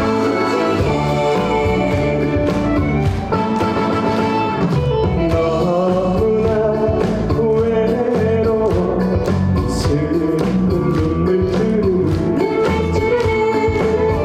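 Korean trot song: a backing track with a steady beat and a voice singing the melody over it.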